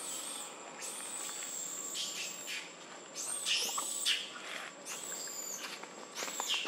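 A series of about five high-pitched animal calls, each rising sharply and then sliding down in pitch, spaced a second or so apart, over a faint steady high tone.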